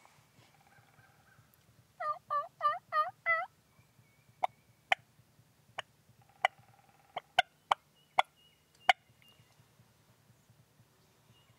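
Eastern wild turkey calling: a quick run of five loud pitched notes about two seconds in, then about nine sharp, short single notes spaced out over the next few seconds.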